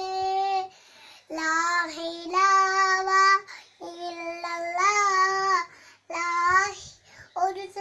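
A high voice singing a lullaby in long drawn-out notes, several phrases of one to two seconds each with short pauses between them.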